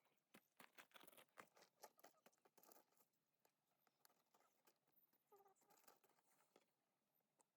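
Near silence with faint, scattered clicks and rustling crackles, busiest in the first few seconds.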